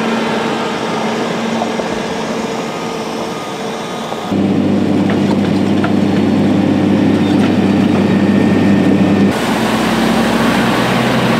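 Diesel engines of road-repair machines running steadily, changing abruptly twice: a heavy truck, then a louder, deeper drone from an SDLG motor grader about four seconds in, then a water-spraying tanker truck near the end.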